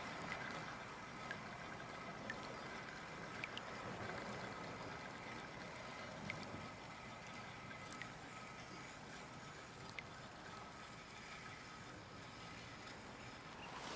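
Faint water trickling and lapping around a kayak on calm water, with a few soft scattered clicks.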